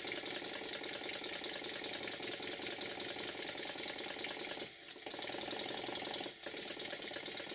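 Stuart Double 10V twin-cylinder model steam engine running slowly at low pressure, its exhaust beats and valve gear making a fast, even rhythm, the beats now even after fine adjustment of the eccentrics. The sound dips briefly twice in the second half.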